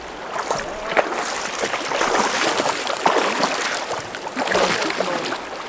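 Irregular splashing and sloshing in a shallow stream over the steady rush of flowing water.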